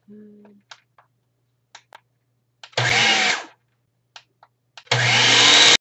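Ninja blender motor run in two short pulses: a burst of under a second about three seconds in, then a longer one about five seconds in whose pitch rises as the blade spins up. A brief low hum comes right at the start.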